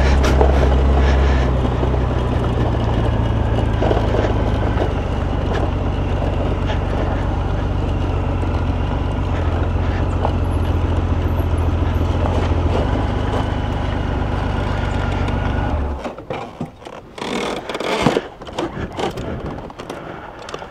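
Honda Gold Wing motorcycle engine running steadily at low speed while parking, then switched off about 16 seconds in. After it stops come scattered knocks and rustles of handling gear.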